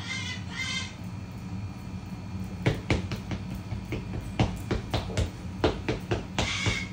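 Broken refrigerator ice maker running with a steady low hum. Sharp, irregular knocks and clicks come in from about two and a half seconds in.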